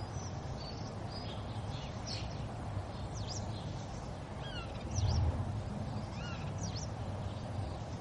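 River water flowing steadily, with several short high bird chirps and down-sweeping calls above the rush. A brief low rumble about five seconds in.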